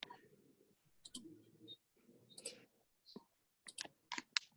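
Faint clicks of a computer mouse, a few spread out and then a quicker run of them near the end, as a file is being unsubmitted on the computer.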